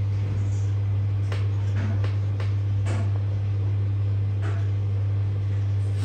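A steady low electrical hum at mains frequency, with a few faint clicks and rustles from handling.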